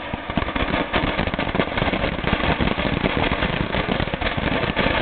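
Handheld fountain firework burning, with a steady rapid crackling hiss as it sprays sparks and smoke.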